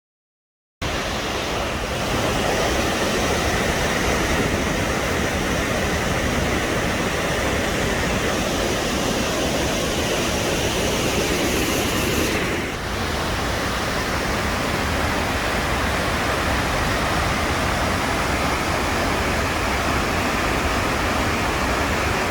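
A waterfall: a loud, steady rush of falling water, with a brief dip about twelve seconds in.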